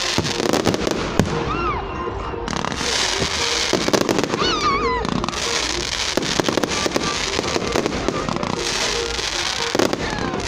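Fireworks display going off: a dense, continuous crackling with bangs, with two brief high wavering tones over it about two and five seconds in.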